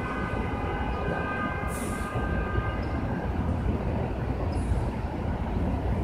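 Steady low rumble of city background noise, with thin high tones coming and going above it.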